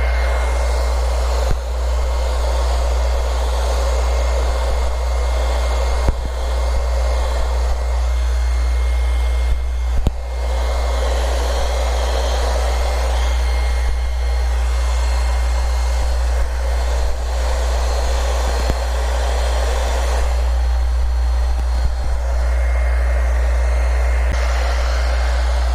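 Electric heat gun blowing steadily with a faint whine, warming vinyl wrap film so it can be stretched and pressed down. A steady low rumble sits under it, and a few small knocks come through.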